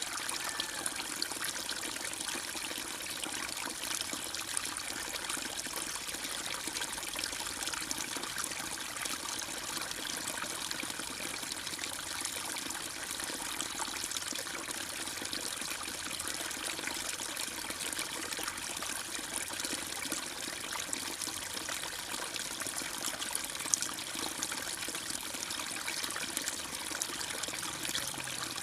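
Running water trickling steadily, like a small stream, with no birdsong over it.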